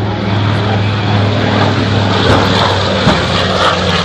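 The twin radial engines of a B-25 Mitchell bomber flying by, a steady low drone.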